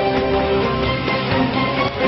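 Instrumental closing theme music of a television programme, with sustained notes over a steady beat.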